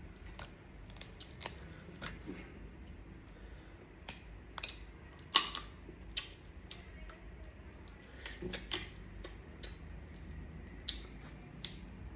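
Irregular sharp cracks and clicks of a hard crab shell being broken open while eating, the loudest crack about five seconds in and a quick run of them around eight to nine seconds.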